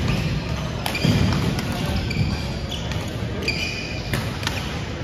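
Court shoes squeaking briefly on a wooden gym floor a few times, with scattered sharp taps.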